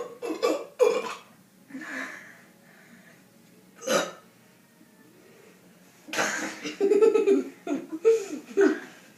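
Deliberate, contest-style burps: a few short ones in the first second, a sharp one about four seconds in, and a longer run of low burps in the last three seconds.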